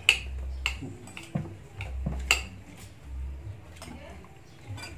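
Spoons clinking and scraping against plates and a dish while people eat, a handful of sharp clinks, the loudest right at the start and about two seconds in.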